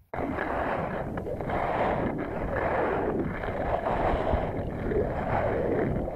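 Skis sliding and scraping over snow on a fast downhill run, with wind rushing over the camera's microphone; the hiss swells and fades about once a second with the skier's turns.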